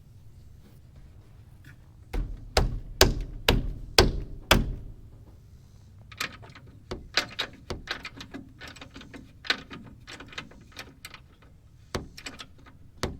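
Hands-on bodywork on a pickup's front bumper: a quick run of about six sharp knocks a couple of seconds in, then lighter scattered clicks and taps.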